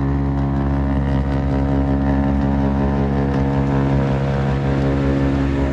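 Farm tractor's diesel engine running steadily under load, driving a rear-mounted snowblower that is throwing snow.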